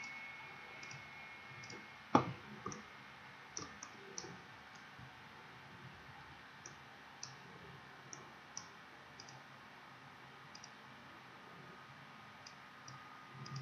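Computer mouse clicking: scattered single clicks, with a louder one about two seconds in.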